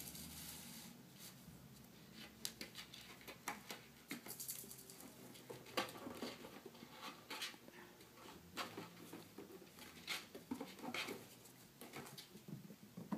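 Kittens' paws pattering on a wooden floor during play, with irregular light taps, knocks and rustles as they bat at a pom-pom toy, a box and paper.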